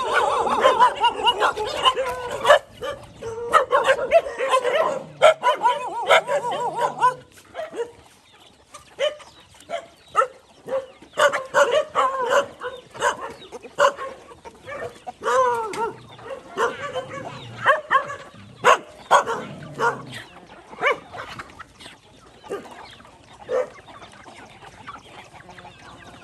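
Several dogs barking and squabbling over a shared food bowl, mixed with chickens clucking, loud and crowded for the first seven seconds or so. After that come scattered short barks, clucks and sharp clicks.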